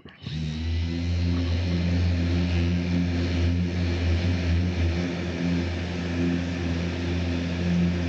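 Orbital sander switched on and running steadily, sanding down the primed side panel of a van; a constant low hum with an even hiss over it.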